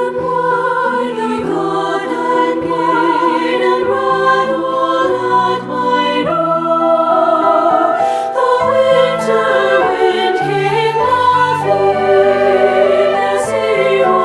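Two-part treble choir singing a slow, wintry choral piece over a delicate piano accompaniment.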